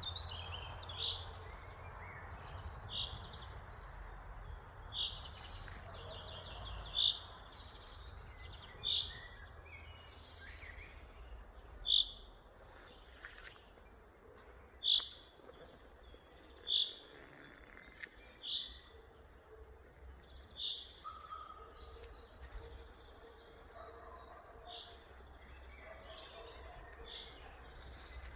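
A bird giving short, high chirps, one every two seconds or so, with fainter calls of other birds in the background and a faint low rumble underneath.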